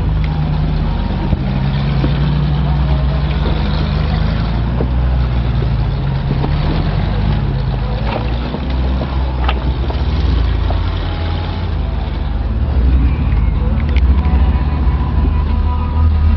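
An off-road 4x4's engine working up a trail climb, its revs rising and falling, with a few sharp knocks.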